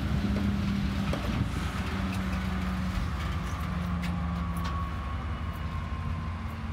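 TasRail TR-class diesel-electric locomotive running as it rolls slowly past and away, a steady low engine drone with a hum, easing slightly near the end, with a few sharp clicks from the wheels on the rails.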